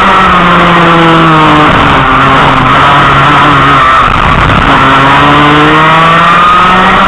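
Racing kart engine heard loud from on board, its pitch dropping for about four seconds as it slows into a corner, then climbing again as it accelerates out.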